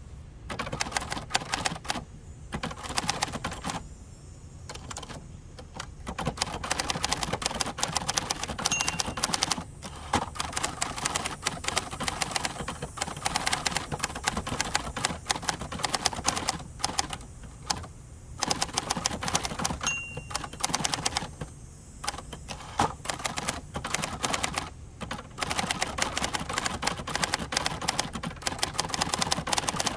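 Typing on a 1967 second-generation Hermes 3000 manual typewriter: rapid runs of keystrikes, broken by short pauses every few seconds.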